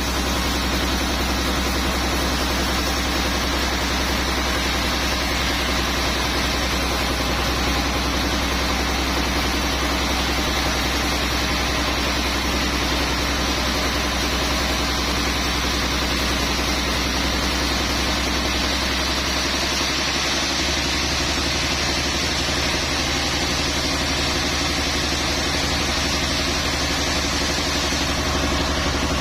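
Sawmill machinery running steadily: a constant low engine hum under an even hiss, shifting slightly about twenty seconds in.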